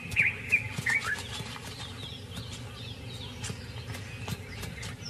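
Birds chirping: a run of short, sharp chirps in the first second, then fainter chirps a couple of seconds in, over scattered light clicks and knocks.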